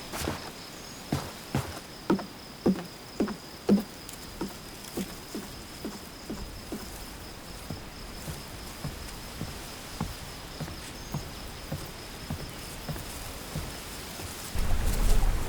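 Footsteps at an even walking pace, about two a second, loud at first and growing fainter as the walker moves away, over a steady high thin whine. Near the end a low rumbling noise starts.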